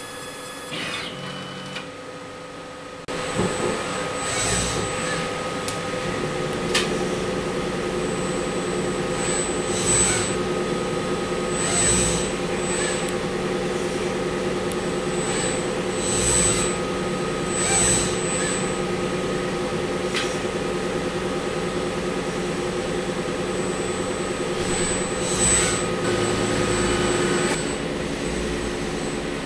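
Laboratory automation machinery running. A microplate liquid dispenser works briefly with a few short tones, then from about three seconds in a steady hum of instrument fans and motors is heard. Over it a robotic arm's motors whine in short, recurring spells as it moves microtiter plates.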